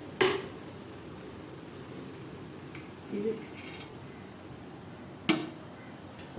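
Two sharp clinks of a metal utensil against a cooking pot, about five seconds apart, each with a short ring.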